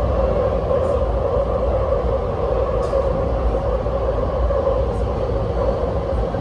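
Inside an MTR SP1900 electric train car in motion: a steady, loud running rumble with a constant droning tone over it, and a few faint ticks.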